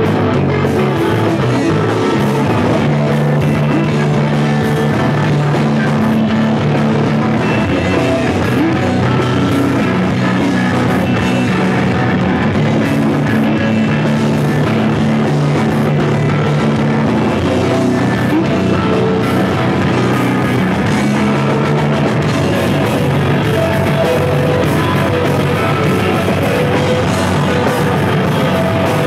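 A rock band playing live, with two guitars, bass guitar and drum kit, in a loud, dense instrumental passage with held low bass notes.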